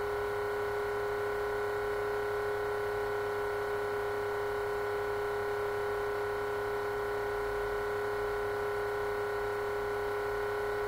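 Steady hum made of several fixed tones, with no change in pitch or level: background noise of the recording setup, such as electrical hum or a computer's whine picked up by the microphone.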